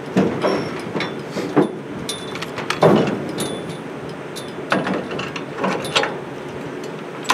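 Browning 1919 machine gun being set onto a steel pintle mount: a series of metal knocks and clunks as the gun is fitted to the cradle, the loudest about three seconds in.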